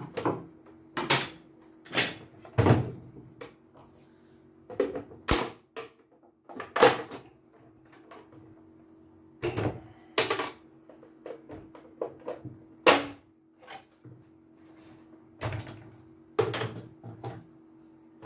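Irregular plastic knocks and clicks, over a dozen of them, as the plastic housing of a CNY portable embroidery machine is handled and lifted off. A faint steady hum runs underneath.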